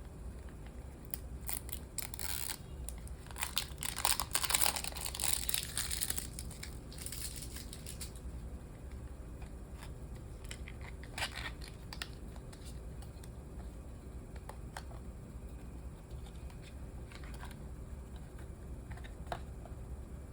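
Packaging crinkling and rustling as it is handled and torn open: a dense run of crackling for several seconds, then a few scattered clicks and rustles.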